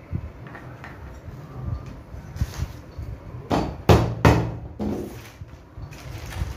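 Hammer driving the nails of small plastic cable clips into a wooden strip. A few light clicks and taps come first, then four sharp hammer blows in quick succession a little past the middle, the second the loudest.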